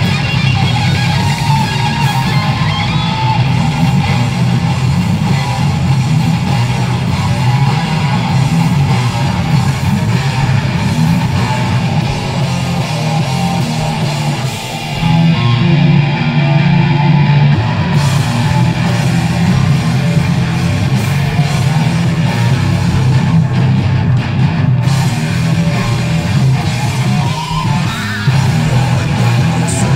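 A heavy metal band playing live and loud on electric guitars, bass and drum kit.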